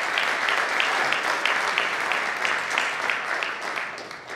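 Audience applauding in a hall. One nearby clapper stands out at about three claps a second, and the applause fades near the end.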